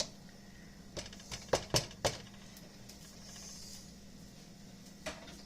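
Kitchenware being handled: a quick run of sharp clicks and clinks about a second in and another near the end, with a soft hiss in the middle.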